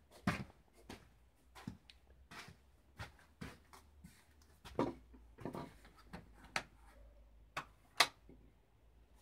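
Footsteps walking, heard as a string of soft, uneven knocks and clicks roughly every half second to a second, with one sharper click about eight seconds in.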